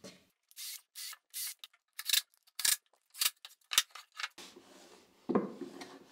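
Wooden parts handled on a workbench: about a dozen short, irregular scrapes of wood rubbing on wood, then a longer, lower sliding scrape as the plywood board is turned over on the bench.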